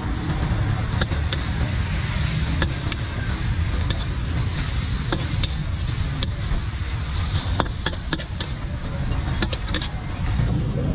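Stir-frying in a wok over a gas burner: a steady low burner rumble under a sizzling hiss, with irregular sharp clinks of the spatula against the wok.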